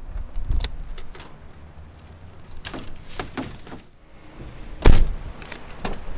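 A folding wheelchair's metal frame rattling and knocking as it is lifted into a car trunk, with a loud thump about five seconds in.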